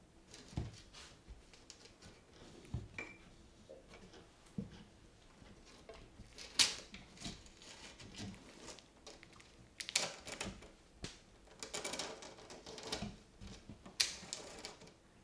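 Argus monitor lizard feeding on a hamster in a bathtub: irregular clicks and scrapes from its claws on the tub and its jaws working the prey, with a few sharper, louder clicks and some brief bursts of scraping.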